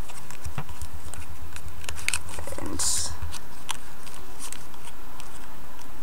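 Origami paper being pressed and creased by hand: scattered small crinkles and taps, one longer rustle about three seconds in, over a steady background hiss.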